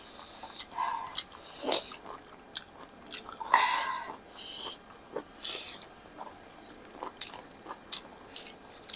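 A person chewing and biting food close to the microphone, with irregular wet mouth clicks and short smacking sounds.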